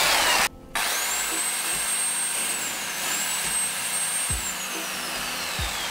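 Corded electric drill boring holes through the car's plastic front bumper at the fender edge, for cable ties. It stops briefly about half a second in, then spins back up to a high whine that dips once and slowly winds down from about four seconds in.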